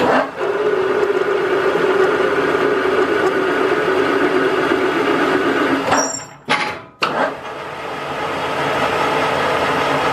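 Metal lathe starting up and running at about 440 RPM while a carbide insert single-point cuts a 3/8 NF thread on a high-tensile steel bolt, the first pass 0.03 in deep. About six seconds in the sound cuts out twice within a second, then the lathe runs on steadily.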